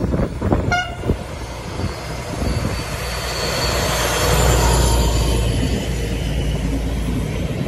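A DB class 218 diesel-hydraulic locomotive passes close by at the head of an Intercity train. Its engine rumble builds to its loudest as it goes past about four seconds in, then gives way to the steady rolling of the coaches with a faint high wheel squeal. Wind buffets the microphone in the first second.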